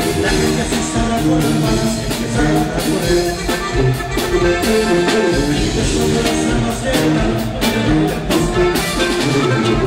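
Live corrido band music played loud over a PA: guitars, brass and a tuba over a steady drum beat.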